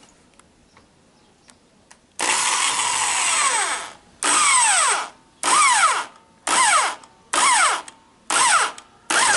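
Bosch Super Hobby corded electric drill in a drill stand boring a small pilot hole through a thin-walled 1-inch steel tube. After about two seconds of quiet it runs for nearly two seconds, then is pulsed on and off six more times, its whine sliding down in pitch within the bursts.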